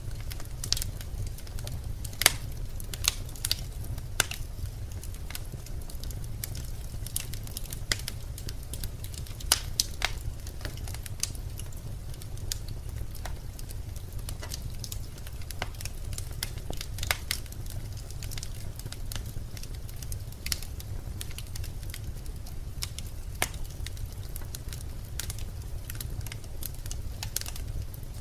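Birch logs burning in a fireplace: irregular sharp crackles and pops, a few louder snaps among them, over a steady low rumble of the fire.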